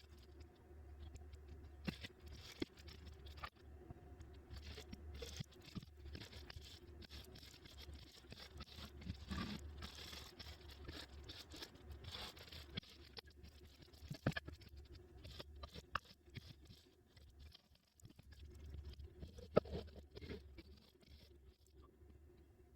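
Small clicks, taps and scraping from hands working on electronic parts, over a steady low hum. The clicks are scattered and irregular, the sharpest about 14 and 19.5 seconds in.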